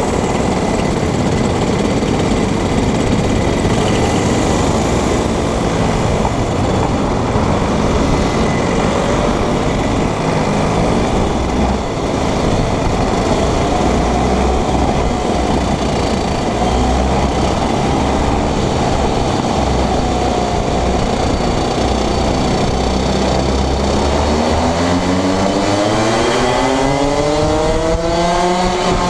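Junior Rotax 125 cc two-stroke kart engines running together in a bunched pack at low speed. About 24 seconds in, an engine starts revving up with a steadily rising pitch as the karts accelerate.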